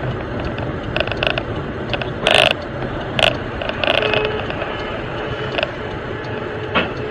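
Road and engine noise inside a moving car, with irregular short rattling clatters every half second to a second.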